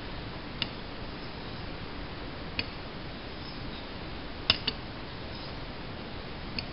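Straight razor being honed on a Thuringian water stone. Light, sharp clicks of steel on stone come about every two seconds, with a close pair about two-thirds of the way in, as the razor is turned over on its spine between strokes.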